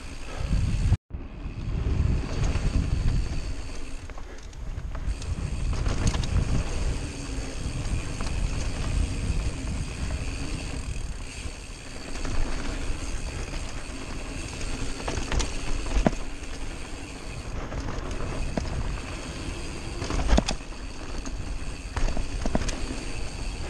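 Mountain bike riding fast down a dirt trail: wind buffeting the microphone over the rumble of the tyres on packed dirt, with sharp rattles and clacks from the bike over bumps, the loudest about twenty seconds in. The sound cuts out for an instant about a second in.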